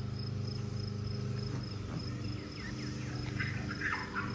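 Insects chirping in a steady high pulsing trill over a steady low hum, with a few brief high squeaks near the end.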